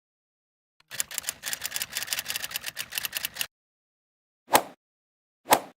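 Rapid clicking for about two and a half seconds, then two single sharp knocks about a second apart.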